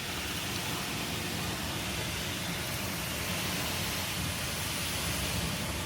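Torrential rain pouring down in a severe thunderstorm, a dense steady hiss.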